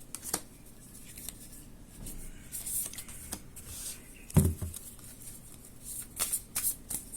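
Fortune-telling cards being drawn and laid out on a table: short slides, flicks and rustles of card stock. A single dull thump of a card or hand on the table comes a little past four seconds in.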